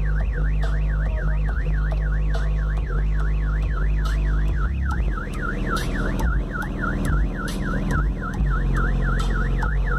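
Car alarm siren warbling rapidly up and down, about four sweeps a second, set off by the vibration of a nearby car stereo's bass. Under it, deep bass from the Jetta's Rock Series 12-inch subwoofers playing music.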